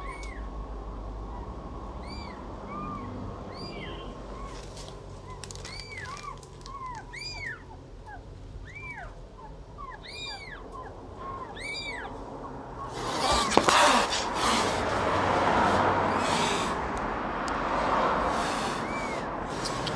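Young nursing kittens mewing: a long run of short, high cries, each rising and then falling in pitch, one or two a second. About thirteen seconds in, a loud rustling noise starts and covers the cries.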